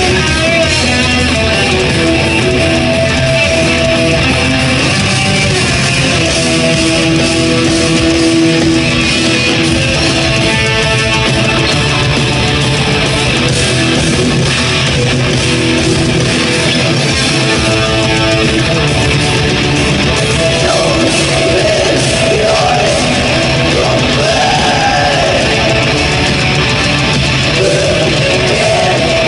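Black metal band playing live: electric guitars and drums in a loud, dense wall of sound.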